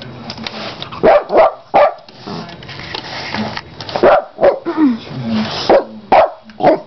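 A dog barking in a series of about eight short, sharp barks, in clusters, while playing at a carpet-cleaning tool.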